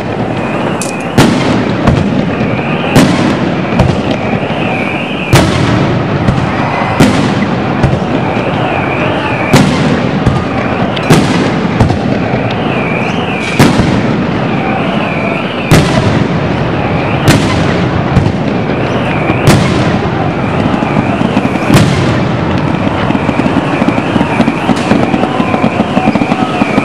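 Fireworks going off: a sharp bang every two seconds or so over a continuous dense crackle of smaller firecrackers, with a high wavering tone coming and going in the background.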